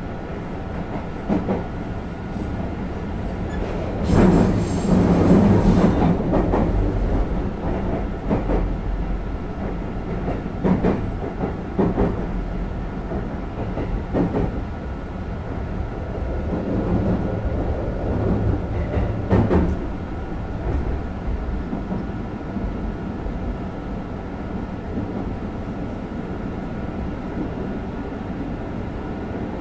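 Running sound inside a JR West 221 series electric train's motor car: a steady rumble from the wheels and traction gear, with scattered knocks from the wheels over rail joints. A louder rushing surge comes about four seconds in and lasts a couple of seconds.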